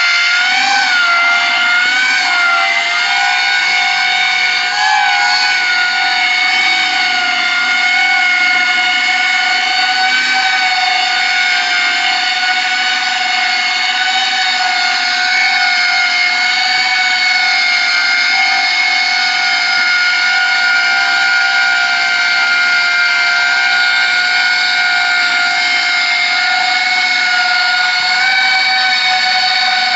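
Small homemade ducted coaxial copter hovering: its electric motors and propellers give a steady high-pitched whine with overtones. The pitch wobbles slightly in the first few seconds as the copter holds its position, then stays nearly level.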